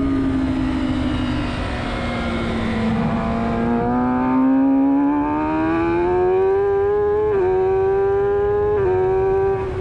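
2020 Kawasaki Ninja ZX-10R's inline-four engine heard on board at speed: the pitch sags slightly through a corner, then climbs as the bike accelerates hard, with two quick upshifts near the end where the pitch drops briefly and climbs again. Wind noise runs underneath.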